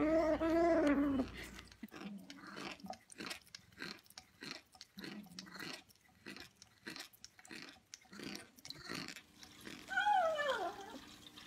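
A cat meows, then chews and crunches on something in a quick, irregular run of bites for several seconds. Near the end it gives another meow that falls in pitch.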